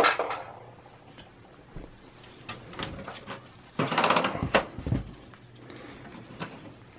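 Sheet-metal parts of a desktop PC case being handled: a sharp metal clank at the start, scattered clicks, then a rattling scrape about four seconds in that ends in a dull thud as the steel drive bracket is moved.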